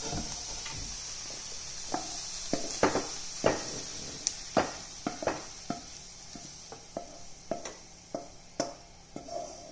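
Wooden spoon scraping and knocking against a frying pan as cooked mushrooms and onions are spooned out. There are a dozen or so irregular knocks, some ringing briefly, over a faint sizzle from the pan.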